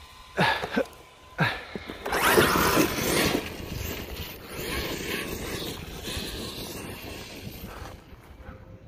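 Arrma Outcast 8S BLX RC truck's brushless motor giving two short rising whines, then the truck speeding off over grass, its motor and tyres loud at first and fading as it goes away.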